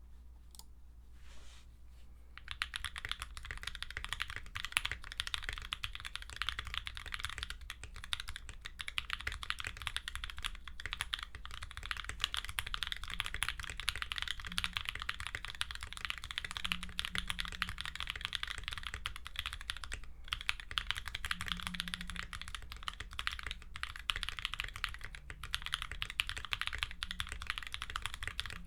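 Steady, fast typing on a BOOP65 custom mechanical keyboard with Creampaca linear switches (NK Cream stems in Alpaca housings), an FR4 plate, PE foam and a tape mod. The keystrokes start about two seconds in.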